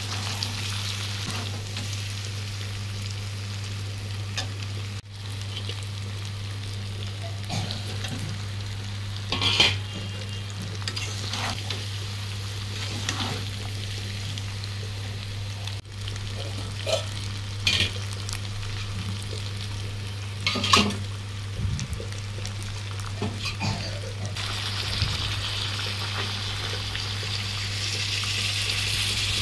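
Chicken and potato curry sizzling in a kadai, with a metal spatula scraping and knocking against the pan now and then over a steady low hum. About five seconds before the end, water is poured into the hot pan and the hiss grows louder.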